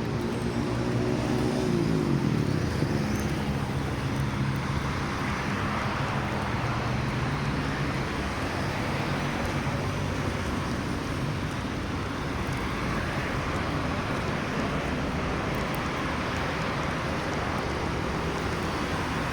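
Road traffic noise: a motor vehicle's engine hum drops in pitch about two seconds in and fades out by about eight seconds, leaving a steady wash of traffic.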